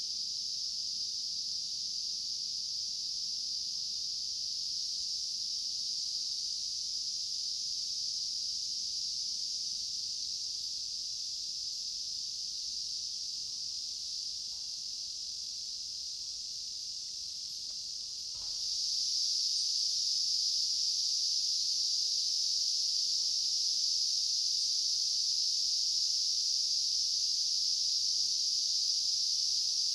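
Steady, high-pitched insect chorus droning without a break. It becomes louder about 18 seconds in, with a faint click at the change.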